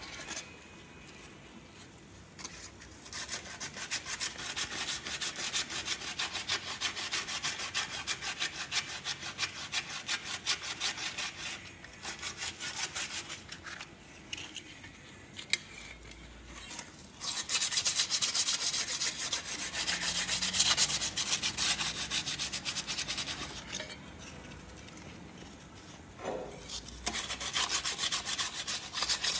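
Fast, even back-and-forth scrubbing strokes, in three long bouts with quieter pauses between them: a surface under the truck being rubbed clean by hand.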